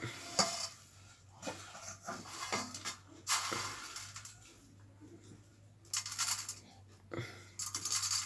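Stainless steel bowl clinking and knocking against the floor as a small child's hand rakes through the puffed rice in it, with irregular light clicks and short rustles of the grains.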